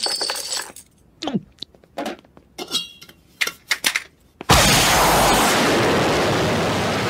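Cartoon sound effects: a string of short clinks as small valuables are poured into a mouth, then, about four and a half seconds in, a jetpack's rocket nozzles fire with a sudden loud, steady rushing blast that carries on to the end.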